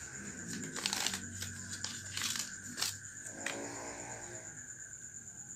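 Paper crinkling and rustling as it is handled by hand, a string of sharp crackles over the first three seconds or so that then die away.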